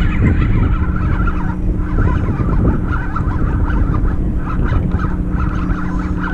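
Shimano Aernos XT 5000PG spinning reel being cranked as the line is reeled in, under heavy wind rumble on the microphone, with a steady low hum that comes and goes.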